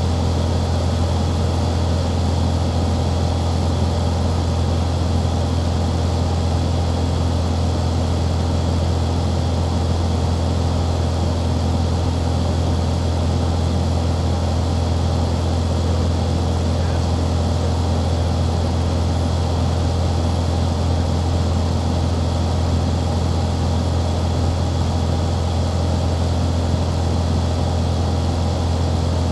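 Light aircraft's piston engine and propeller droning steadily in flight, a constant low hum with a wash of noise above it.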